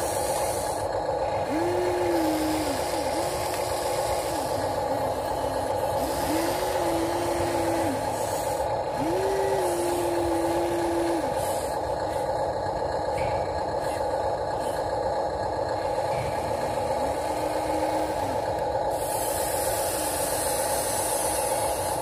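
Huina RC excavator's electric motors whining in repeated spurts of one to two seconds as the arm and bucket swing and lower, each whine rising, holding and falling away, over a steady mechanical hum.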